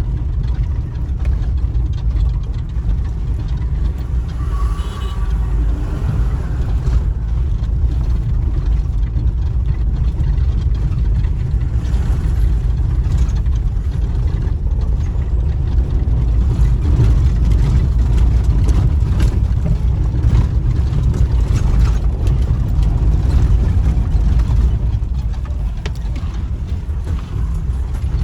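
A vehicle travelling along a road: a steady low rumble of engine and road noise.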